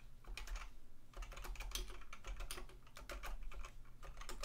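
Typing on a computer keyboard: quick runs of key clicks with a couple of short pauses.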